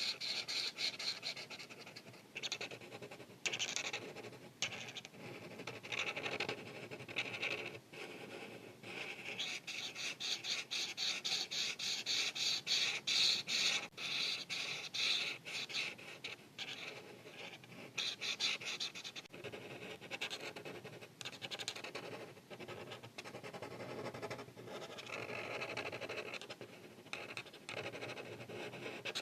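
Art marker tip rubbing across paper in quick repeated back-and-forth strokes while colouring in, with the fastest and loudest run of strokes about midway through.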